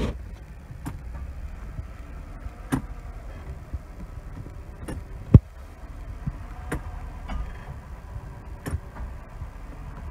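A 1999 Mercedes S320's driveline giving a sharp metallic click each time the gear selector goes between reverse and drive, several clicks a second or two apart over the idling engine, the loudest a low knock about halfway through. The owner suspects a worn flex disc between the transmission and the drive shaft.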